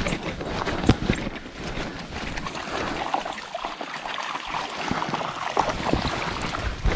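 Water splashing and sloshing in irregular bursts as someone wades through a shallow river, with steps and splashes in the current.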